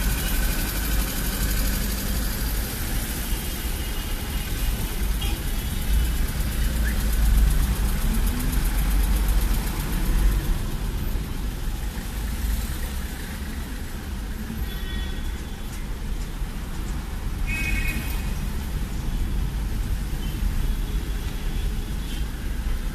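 Car driving in city traffic, heard from inside the cabin: a steady low rumble of engine and road. A few brief high tones come about two-thirds and three-quarters of the way through.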